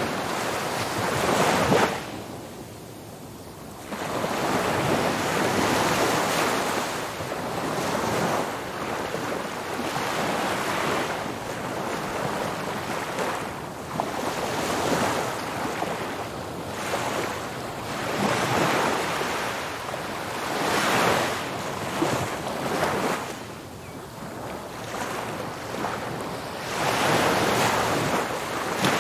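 Ocean waves breaking and washing up a beach, the surf swelling and falling every few seconds, with a brief lull about two seconds in. Some wind rumbles on the microphone.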